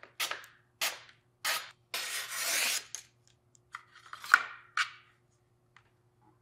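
A chef's knife is slid out of its protective sleeve in a few quick swishing strokes, the last one longer. Then comes plastic handling noise from the knife's sheath, with one sharp click about four seconds in.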